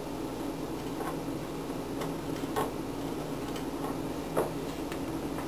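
Light, irregular clicks of a soldering-iron tip and fingers touching the metal LED leads and alligator clip while joining them with solder, over a steady low hum.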